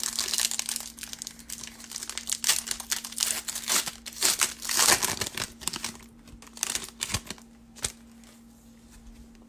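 Foil wrapper of a 2019 Panini Certified football card pack crinkling as it is opened by hand, dense and loud for the first five seconds, then a few light crinkles that die away near the end.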